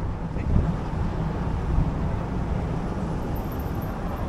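Wind buffeting the microphone of a camera riding on a moving e-bike: a steady low rumble over tyre and road noise, with two louder swells in the first two seconds.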